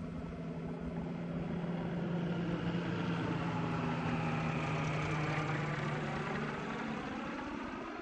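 Tow winch engine running steadily, pulling a hang glider up on its line. It grows louder to a peak about five seconds in, then eases off near the end.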